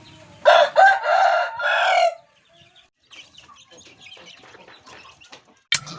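A rooster crowing once, a full cock-a-doodle-doo of about two seconds in four parts: two short notes then two long ones. Faint scattered ticks follow, and music starts near the end.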